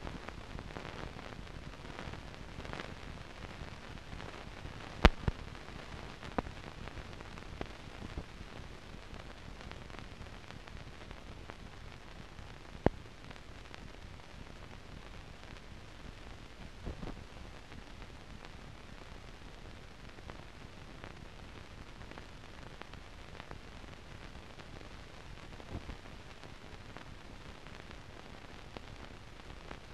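Steady hiss and crackle of a blank film soundtrack from a silent newsreel print, with scattered sharp clicks and pops from dirt and scratches on the film, the loudest a little after five seconds in and another near thirteen seconds.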